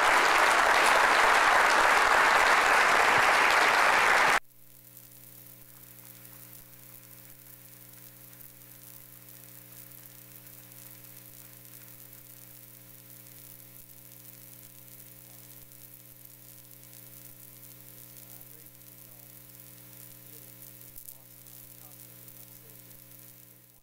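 Audience applauding, cut off suddenly about four seconds in. Then only a faint steady electrical hum with low hiss.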